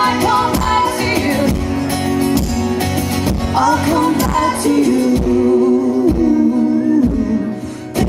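Live acoustic pop band: strummed acoustic guitars with female vocals singing a melody, the music dropping in level near the end as the song closes.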